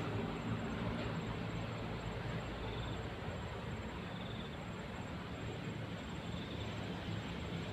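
Steady outdoor rushing noise with a low hum, under a high, fine pulsing insect trill and short insect chirps that come every second or two.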